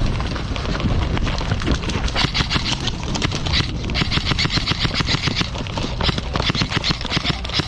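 Airsoft electric guns firing on full auto: several long bursts of rapid, evenly spaced shots, starting about two seconds in.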